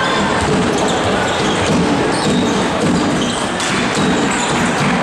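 A basketball being dribbled on a hardwood court, its repeated bounces over the steady din of an arena crowd.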